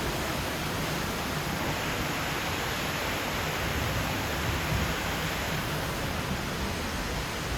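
Steady, even hiss of ambient noise aboard a slow-moving attraction ride boat, over a low rumble.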